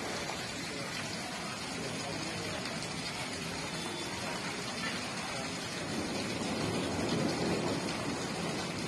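Torrential rain falling steadily on a flooded street, a continuous hiss of rain and running water that grows a little louder about six seconds in.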